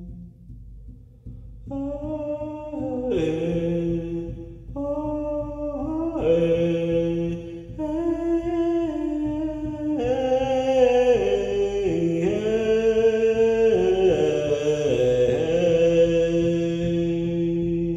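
A man singing a slow, melodic chant in long phrases that glide from note to note, entering a couple of seconds in. It runs over a steady low drone.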